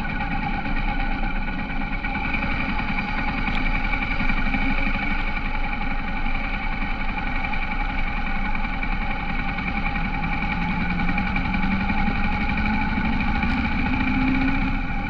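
Honda H'ness CB350's single-cylinder engine running steadily while riding.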